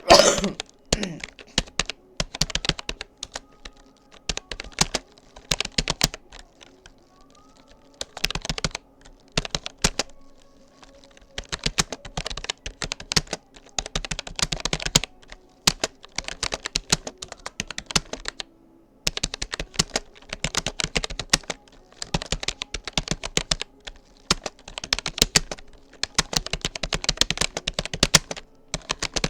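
Typing on a Rapoo computer keyboard: rapid key clicks in bursts of a few seconds, with brief pauses between them. One louder knock comes right at the start.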